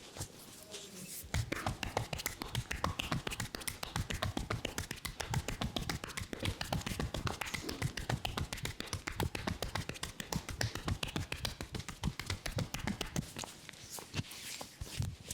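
Rapid percussive massage strokes: a barber's hands tapping and slapping the client's body in a fast, steady patter of strikes that starts about a second in and eases off near the end.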